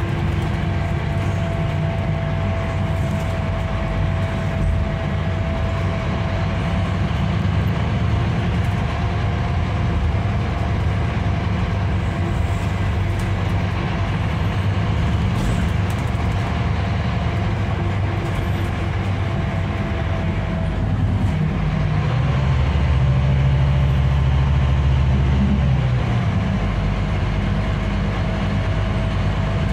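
Scania K310IB coach under way, heard from inside the passenger cabin: a steady low rumble from the rear-mounted engine and the road, with a thin steady whine over it. The rumble swells for a few seconds about three quarters of the way through, and the whine dips and bends just before and after that.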